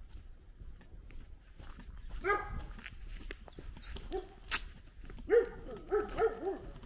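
A dog barking: a single bark about two seconds in, another around four seconds, then a quick run of three or four barks near the end. A sharp click sounds between them.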